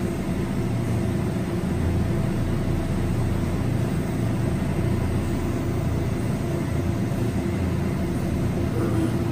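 Glassworking bench torch burning steadily: an even, low rushing flame noise with no breaks, as glass rods are heated in it.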